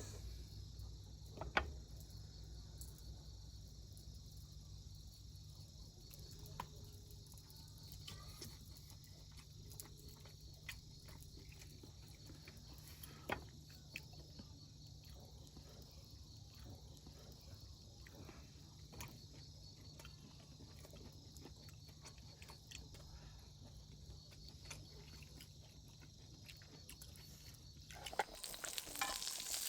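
Crickets trilling steadily over a low steady hum, with a few faint clicks and knocks. Near the end, food starts sizzling in a pan.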